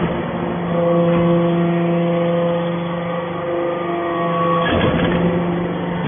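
Copper-shavings briquetting machine running: a steady motor and pump hum made of several held tones, with a short clattering burst about five seconds in.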